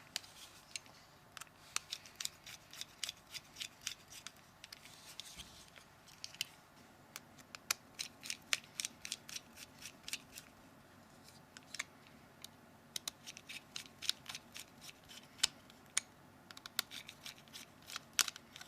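Rapid, irregular small clicks of a T5 Torx screwdriver doing up the tiny screws in a Nokia C3-01's frame, coming in clusters with short pauses between.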